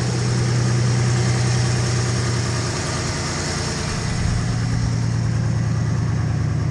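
A 1997 Ford F-150's six-cylinder engine, a 4.2 L V6, idling just after a −35 °F cold start on ether. The idle wavers about three seconds in, then steadies.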